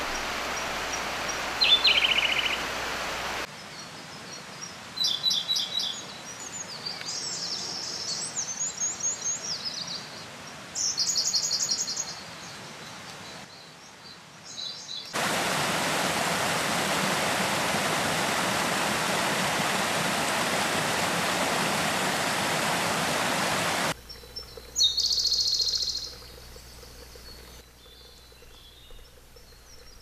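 Siberian blue robin singing: short high trilled phrases repeated every few seconds. Stretches of steady rushing noise lie between them, loudest in the middle section.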